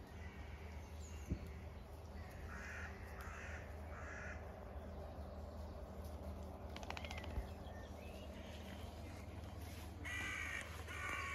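Crows cawing in runs of harsh calls: three a couple of seconds in, then a louder series near the end.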